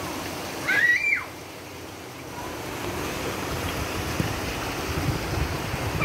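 Water of a rocky brook rushing over stones, growing louder about two and a half seconds in. A short high-pitched squeal about a second in.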